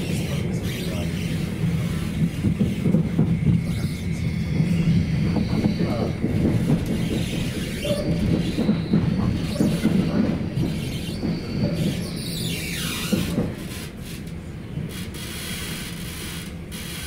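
Electric commuter train heard from inside the carriage, running with a heavy low rumble and rattle. About two-thirds of the way in, a high whine falls in pitch and the running noise drops as the train brakes for its final stop.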